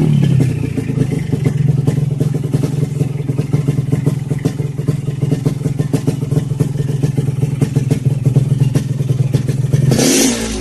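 Yamaha RX King's single-cylinder two-stroke engine through an expansion-chamber exhaust, settling from a rev into a steady, crackly idle, then revving up again near the end.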